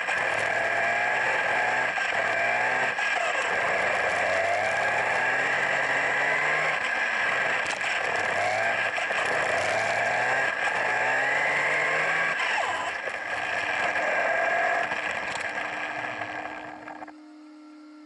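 Onboard sound of a WLtoys 104001 1/10 electric RC buggy driving: its brushless motor whines up and down in pitch with the throttle over a steady high whine and a rushing noise of the tyres on the pavement. Near the end the motor falls quiet, leaving a faint steady hum.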